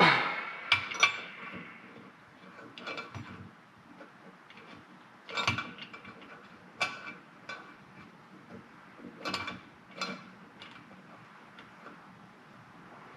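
Irregular metallic clinks and clanks of hand tools against a cylinder head while a stuck valve is worked on, each with a short ring, the loudest right at the start.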